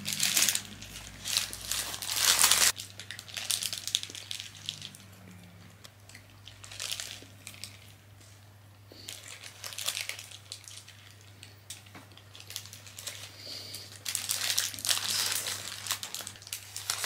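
Paper sandwich wrapper crinkling in several bursts as a bacon McGriddles sandwich is handled and bitten into, the longest bursts near the start and near the end, with chewing in the quieter stretches between.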